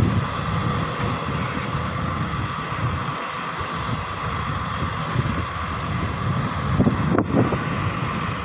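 Diesel engines of Hyundai hydraulic excavators running steadily, with wind noise on the microphone. A brief click about seven seconds in.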